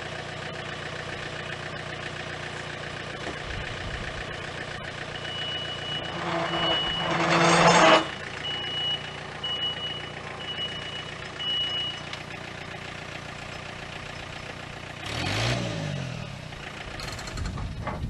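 Engine of a grapple-equipped machine running steadily while it handles a log. A reversing alarm beeps about seven or eight times, evenly spaced, starting about five seconds in, and the engine surges loudly just before the beeping stops.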